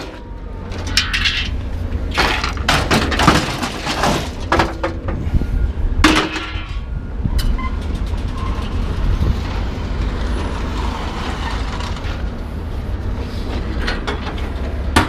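Scrap metal being handled, with a run of clanks and crashes in the first half, over a steady low rumble.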